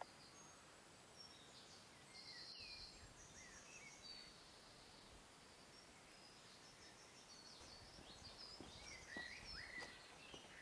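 Faint forest birdsong: scattered high chirps and short whistled calls from several birds, with a brief buzzy trill about two seconds in and a busier flurry of calls near the end.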